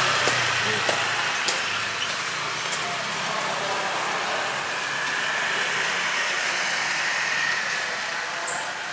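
Street traffic noise: a motor vehicle's engine running and fading, over a steady background hum. A brief high chirp comes near the end.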